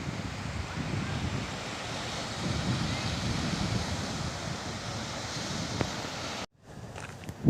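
Steady rushing wind noise on the microphone outdoors, cutting off abruptly about six and a half seconds in, followed by a few faint clicks.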